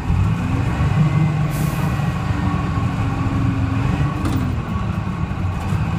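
GMC New Look transit bus's Detroit Diesel 6V71 two-stroke diesel running under way, its pitch rising as it pulls, dropping about four seconds in, then climbing again. A short hiss of air comes about a second and a half in.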